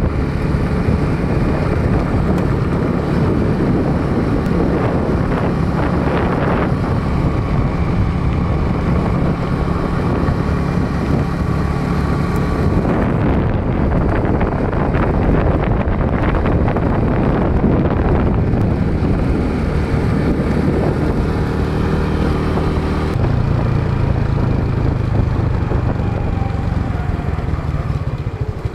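Motorbike engine running steadily while riding on a dirt road, its note shifting a couple of times as speed changes, with wind buffeting the microphone.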